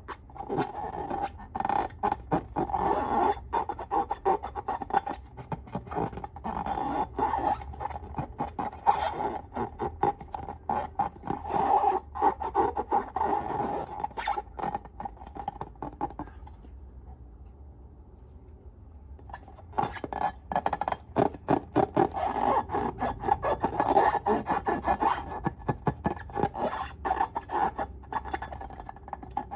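Slime being worked by hand, close up: dense, rapid crackling clicks and rubbing, with a lull of about three seconds in the middle.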